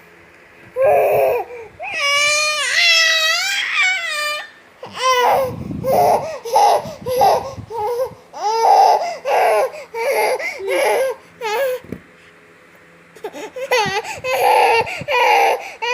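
Baby crying and whining in repeated wavering wails, fussing to be breastfed. The crying stops briefly about twelve seconds in, then starts again.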